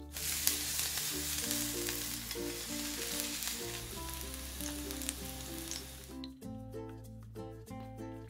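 Steady frying sizzle, a cooking sound effect laid over the closed toy waffle press, over light background music. The sizzle stops about six seconds in and the music carries on.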